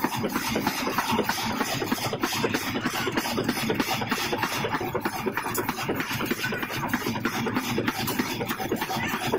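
Pneumatic forging hammer running on a red-hot steel ring forging: a fast, even run of knocks, several a second.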